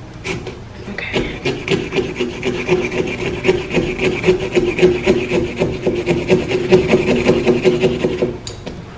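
Small pumpkin-carving saw sawing back and forth through a pumpkin's rind around the stem, cutting out the lid: a fast run of rasping strokes that starts about a second in and stops near the end.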